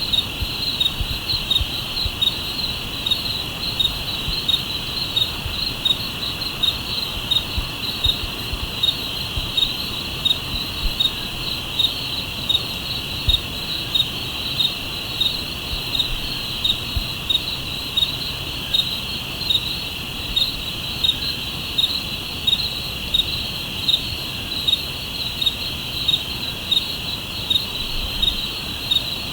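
Crickets chirping at night: a steady high-pitched chorus, with one close insect pulsing about twice a second over it.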